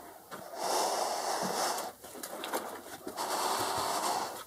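A person breathing heavily close to the microphone: two long, rushing breaths, each over a second.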